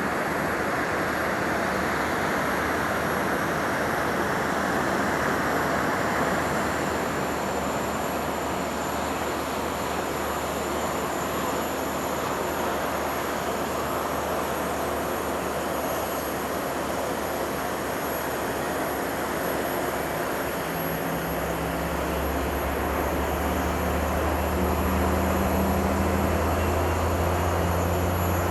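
Jet engines of a Boeing 767-300ER running: a steady rushing noise with a thin high whine. A low hum joins about three quarters of the way through, and the sound grows slightly louder near the end.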